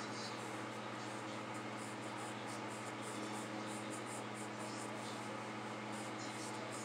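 Pencil scratching on drawing paper in short, light sketching strokes, over a steady low hum.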